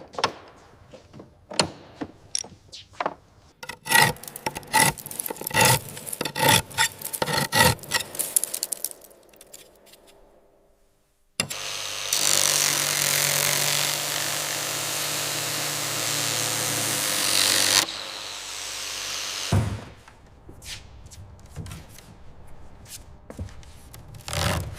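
Workshop tool sounds on metal. First comes a run of sharp metallic taps and clinks that ring briefly. Then, after a short pause, a power tool runs steadily for about six seconds and stops suddenly, followed by a few scattered clicks.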